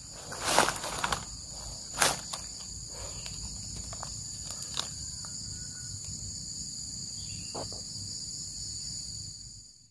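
Steady, high-pitched insect chorus, a shrill drone in two pitches. A few rustles and crunches in leaf litter underfoot in the first two seconds; the sound cuts off abruptly near the end.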